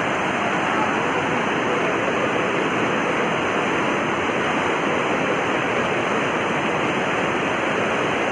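Steady rush of fast-flowing floodwater in a swollen river.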